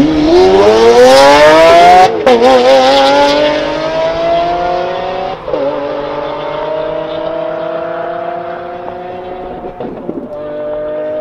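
Lamborghini Aventador's V12 launching hard down a drag strip, its revs climbing steeply and dropping at upshifts about two seconds, five seconds and ten seconds in, with a sharp crack at the first shift. The sound is loudest at the launch and grows fainter as the car pulls away.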